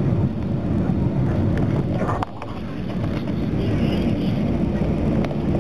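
Airliner cabin noise on the ground: a steady low rumble and hum of the jet engines heard from inside the cabin. It dips suddenly a little before halfway, then builds back up.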